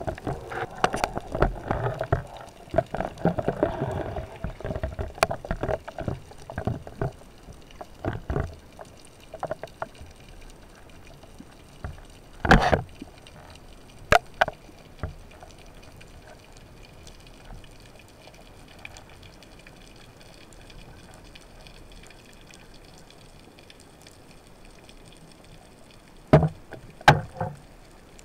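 Underwater sound through a camera housing: a busy spell of clicks, knocks and rushing water while a freediver handles a speargun, then faint steady hiss with a few sharp knocks, one loud one about halfway and a short cluster near the end.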